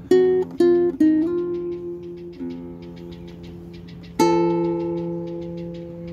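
Acoustic guitar strumming chords. Three strums come in the first second and a louder one about four seconds in, each left to ring. A fast dry ticking, several ticks a second, runs underneath.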